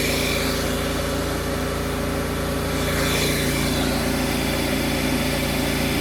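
Combine harvester running steadily at work, a constant engine and machinery drone with several steady hums.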